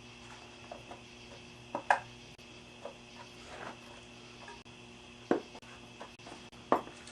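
Scattered light knocks and clicks of tools and parts being handled, the sharpest about two seconds in and twice near the end, over a steady low hum.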